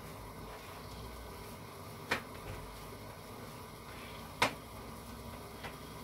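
Hands kneading corn-flour arepa dough in a clay bowl, with two sharp knocks about two seconds apart as the hands press against the bowl.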